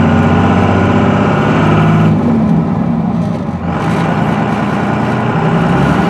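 5.9-litre 24-valve Cummins inline-six turbodiesel running, heard from inside the cab. The engine note eases off about two seconds in and picks up again a second and a half later.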